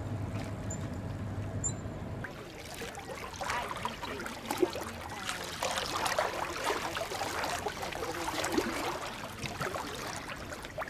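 Small waves lapping and trickling over flat shoreline rocks in shallow sea water, with irregular little splashes. This follows a steady low hum in the first two seconds.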